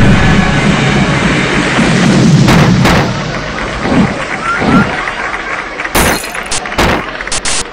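Instruments being smashed at the end of a rock song: a dense, noisy crash-and-roar that thins out after about three seconds, then a few sharp crashes and thuds, the strongest about six and seven seconds in.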